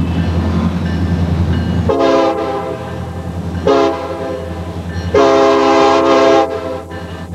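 Horn of a Norfolk Southern SD70M-2 diesel locomotive blowing for a grade crossing, a chord-like note sounded three times: a blast about two seconds in, a short blast, then the longest and loudest blast about five seconds in. This is the end of the standard long-long-short-long crossing signal.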